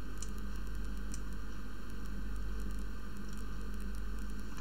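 Steady microphone hiss over a low mains hum, with two faint computer-mouse clicks about a quarter second and a second in.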